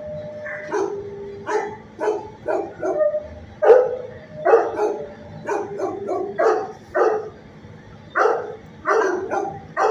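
Dog barking repeatedly in a long, uneven run of short barks, about two a second.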